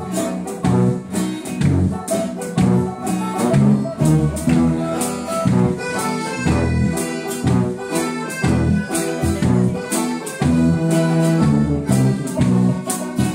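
A band playing live: guitars and a sousaphone bass line over a steady drum beat, heard from high up in the hall.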